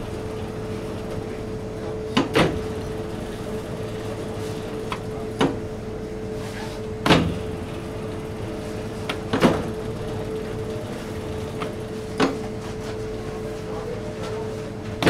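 Electric dough sheeter running with a steady hum as dough is rolled through it. About six sharp clacks two to three seconds apart come as its controls are worked between passes.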